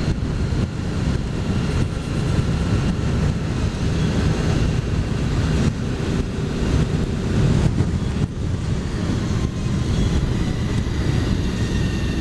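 Heavy wind roar buffeting a motorcycle-mounted camera's microphone in a strong gale, with the motorcycle's engine running steadily underneath.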